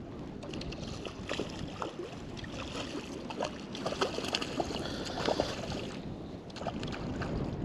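Steady wind and water noise with scattered small splashes and clicks.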